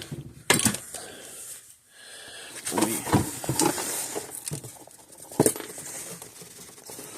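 Irregular clicks, knocks and scraping of a screwdriver bit working at screws in a fence charger's plastic case; the screws are stuck because their recessed holes are packed with dirt dauber nest debris.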